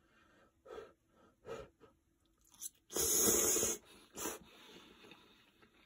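A person eating spaghetti: a few short mouth sounds, then a loud hissing slurp lasting under a second about three seconds in, followed by chewing.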